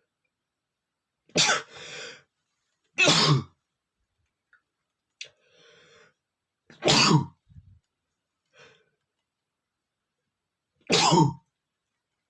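A man sneezing four times, each sneeze a loud, short, forceful burst, spaced a few seconds apart, with faint breathy noises between them.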